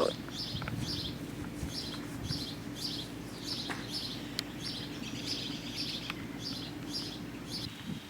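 A songbird repeating a short, high chirp about twice a second, over a steady low hum.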